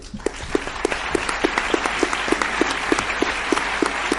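Audience applauding at the end of a talk, with one person's claps close to the microphone standing out at about three a second.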